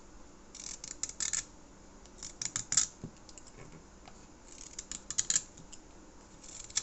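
Browning M1911 pocket knife blade making short controlled cuts: four quick bursts of crisp slicing strokes, each a handful of sharp rasps about a second long.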